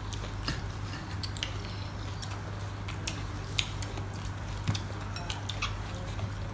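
Forks and spoons clinking and scraping against plates and a glass bowl as several people eat: irregular sharp clinks, two louder ones a little past the middle, over a steady low hum.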